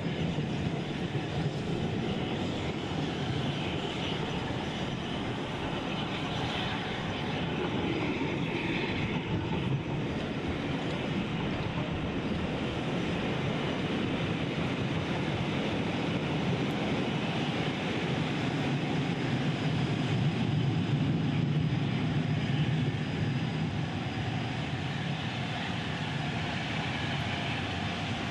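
Passenger train running along the track, heard from a carriage window: a steady rumble of wheels on rail, a little louder about three-quarters of the way through.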